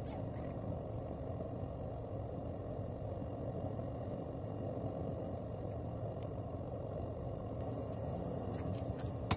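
Forge running with a steady low rumble while the Damascus billet heats toward welding temperature.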